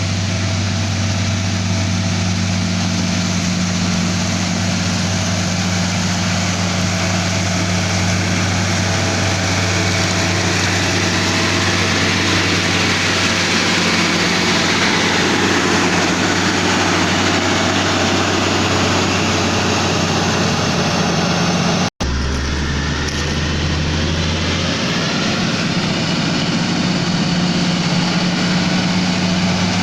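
Diesel engine of a Komatsu GD555 motor grader running steadily, with a broad rushing noise that swells in the middle. About two-thirds of the way through the sound breaks off sharply, and the engine hum picks up again, lower for a couple of seconds before it settles back to its earlier pitch.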